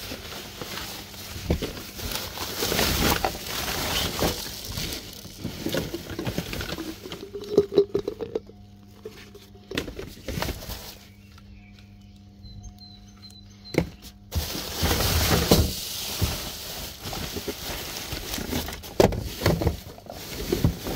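Plastic bags and rubbish rustling and crinkling as a gloved hand rummages through a bin of waste, with a few knocks in between. It goes quieter for a few seconds about halfway through, leaving a faint steady hum.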